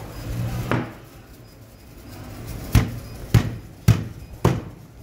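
Knife chopping through a kingfish on a wooden cutting board: a softer knock near the start, then four hard chops about half a second apart.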